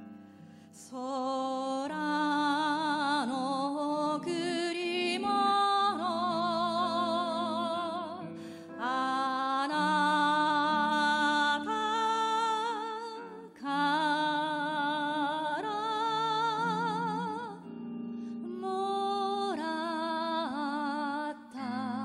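A woman singing slow phrases of long held notes with a wide vibrato, over a soft backing of plucked sanshin and electric guitar.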